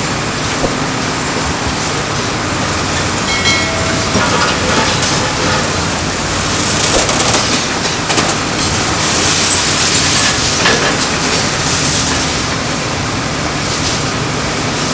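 Heavy tracked machinery, a bulldozer at work, running steadily with metallic clanking and a brief high-pitched metal squeal about three to five seconds in.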